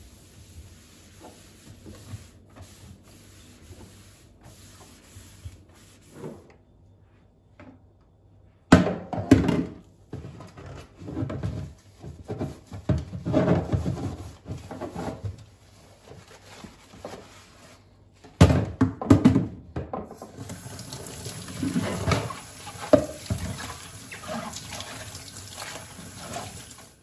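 Water from a kitchen tap running into a sink, with things knocking and being handled under the stream. The first part holds only soft clicks. A loud knock comes about a third of the way in and another about two thirds in, and a steady flow of water fills the last few seconds.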